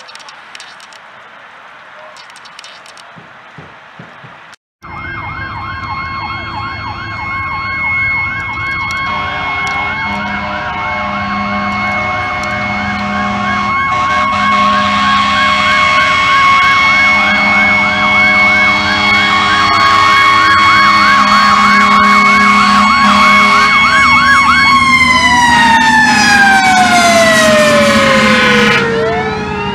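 Emergency sirens from responding fire apparatus: a fast-cycling yelp alongside slower rising-and-falling wails, getting louder as they approach. One siren, held at a steady high pitch, falls away in a long downward glide about 25 seconds in. For the first 5 seconds there is only quieter outdoor background, which cuts off abruptly.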